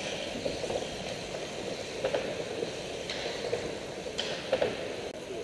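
Steady background noise of an indoor velodrome, with a few brief faint sounds about two, four and four and a half seconds in.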